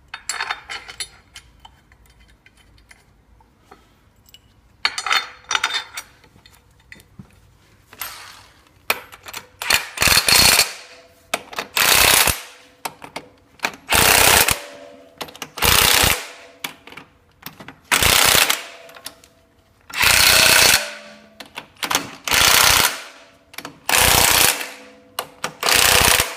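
Power impact gun running in and tightening the front cover bolts of a rotary lobe pump: about nine short, loud rattling bursts, one every two seconds or so, starting about ten seconds in. Before them come light clicks and clatter of parts being handled.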